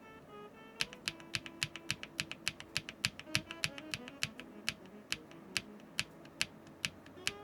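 Linear mechanical keyboard switches being typed on a Neo Ergo keyboard with a polypropylene plate and no foam: a steady run of keystrokes, about four a second, starting about a second in, with background music underneath.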